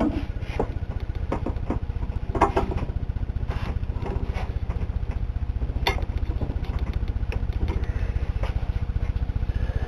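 Scattered metal clicks and a brief creak as steel C-clamps are worked down on the clutch piston return spring of a Ford C4 automatic transmission. Underneath runs a steady low, fast-pulsing rumble.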